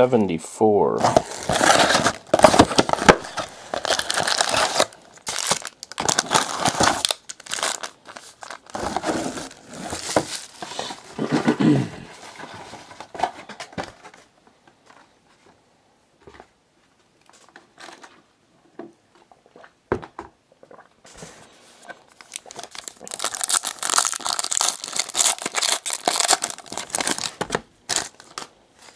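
Trading-card box packaging and foil card packs crinkling and tearing in dense bursts as the box is opened and the packs handled. About twelve seconds in it goes mostly quiet for around ten seconds, with a few clicks, then the crinkling starts again near the end.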